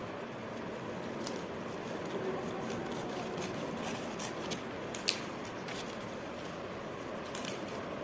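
Scissors cutting newspaper: several short, sharp snips of the blades with paper rustling, over a steady background hiss.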